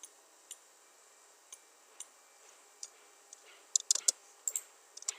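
Clicks of a computer mouse and keyboard: a few single clicks spaced about half a second to a second apart, then a quick run of louder clicks about four seconds in and a few more near the end.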